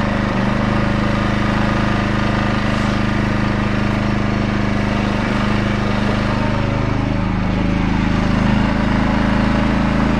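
Champion 2200 W petrol inverter generator running steadily while it warms up. Its pitch shifts slightly and it gets a little louder about seven to eight seconds in.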